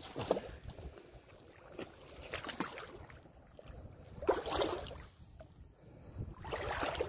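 A person wading through shallow wetland water, legs sloshing and splashing in about four uneven surges.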